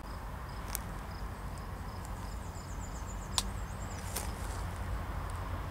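Faint low rumble of an approaching diesel freight train in the distance, under outdoor ambience: a high chirp repeating every fraction of a second, a brief bird warble near the middle, and a few sharp clicks.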